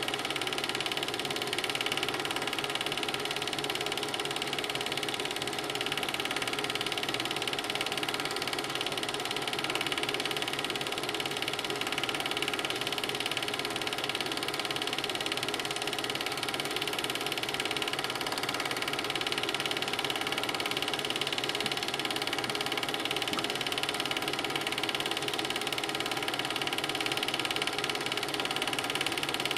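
A steady mechanical whirring with a constant hum of several tones, unchanging throughout.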